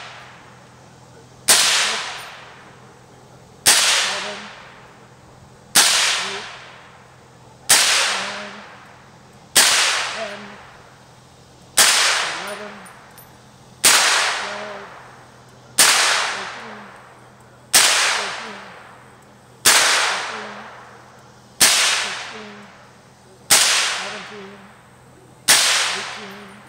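Suppressed firearm fired at a steady slow cadence, thirteen shots about two seconds apart, each crack followed by an echo that dies away over about a second and a half.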